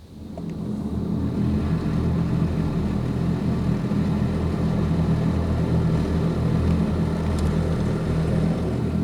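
WashTec SoftCare2 Pro Combiwash high-pressure pump running and its jets blasting water against the car, heard from inside the cabin as a steady loud hum and rushing spray that swells up in the first second.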